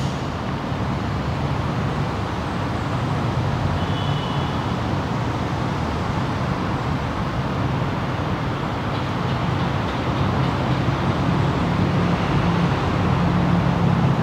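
Steady road-traffic noise: a low rumble under a hiss, swelling slightly in the last few seconds.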